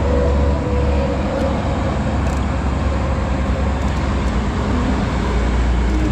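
Road traffic noise: a steady low rumble of passing motor vehicles.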